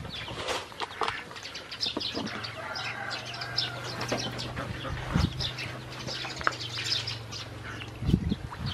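Ducklings peeping with many short high chirps while they splash and dabble in a shallow basin of water, with a couple of soft knocks.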